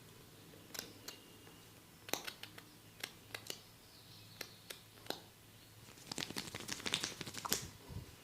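Close-miked hand massage: an irregular run of crisp clicks and crackles from hands working on skin and hair, sparse at first and coming thick and fast for the last couple of seconds.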